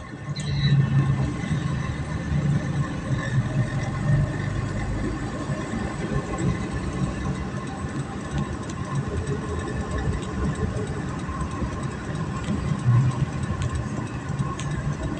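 Steady low drone of a moving vehicle's engine and road noise while riding through city streets, getting louder about half a second in.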